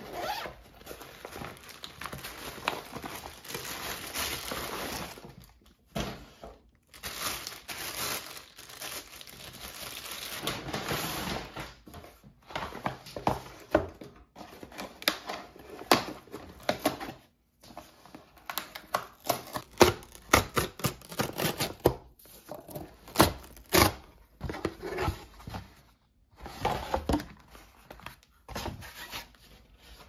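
Hands unboxing packages: rustling and crinkling of packaging and tape tearing off a cardboard shipping box, with many short clicks and knocks as the boxes and items are handled.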